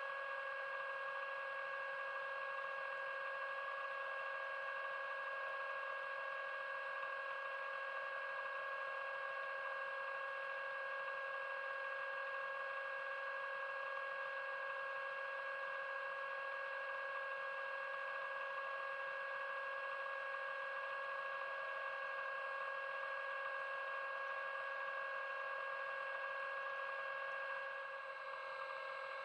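Steady electric whine of an underwater scooter (diver propulsion vehicle) motor running underwater, a hum made of several even tones that dips slightly near the end.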